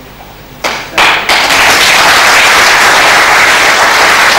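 Audience applauding, breaking out about a second in with a few sharp claps and then holding as steady, dense clapping.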